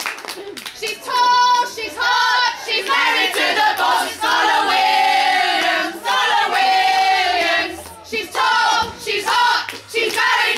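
A small group of women supporters singing a football chant together in sung phrases with short pauses between them.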